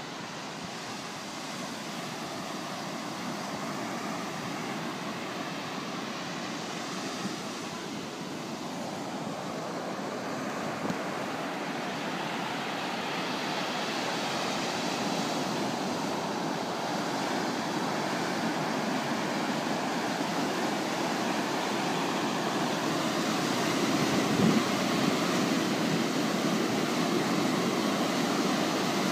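Ocean surf breaking and washing up the beach: a steady rushing that grows gradually louder.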